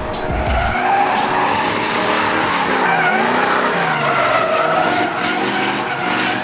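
Pickup truck drifting: tyres squealing in a wavering screech over the engine revving up and down as the truck slides sideways through the corner.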